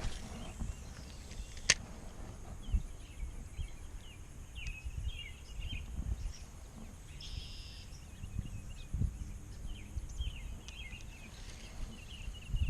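Small birds chirping again and again, over a faint steady insect drone and wind buffeting the microphone. A single sharp click sounds a couple of seconds in.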